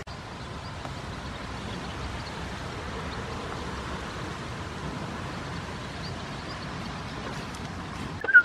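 Steady rushing outdoor background noise, with one short, loud high chirp near the end.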